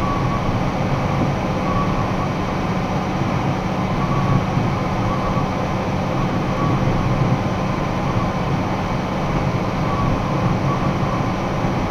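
Box truck cruising at steady highway speed, about 66 mph, heard from inside the cab: a constant drone of engine and road noise, with a low hum and no change in pace.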